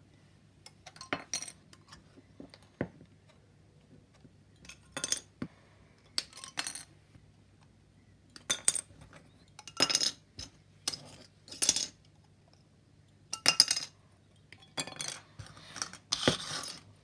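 Hard plastic model-kit parts being snipped off their sprue and handled: irregular sharp clicks, snaps and short plastic clatters, with parts set down on a cutting mat.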